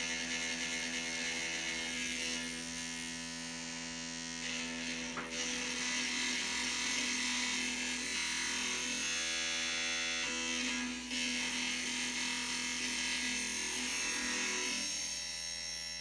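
Dark MIDI remix of a Sony Ericsson ringtone: sustained synthesized chords thick with harsh distortion hiss. The chord changes about five seconds in and again about eleven seconds in.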